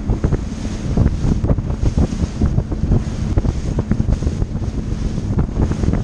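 Heavy wind buffeting the microphone on a bass boat running fast through choppy water, with the hull slapping the waves in irregular thumps.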